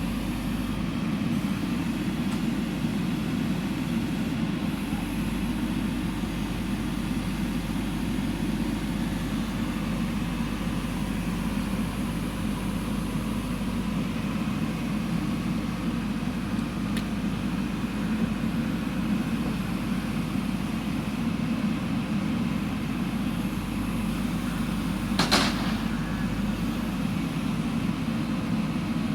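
JCB backhoe loader's diesel engine running steadily under work, with one brief sharp high sound near the end.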